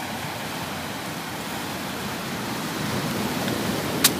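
Steady wash of ocean surf breaking on rocks, with one sharp click about four seconds in.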